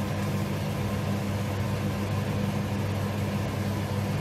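Steady low mechanical hum at an even level, with no clear clinks from the ladle or bowl.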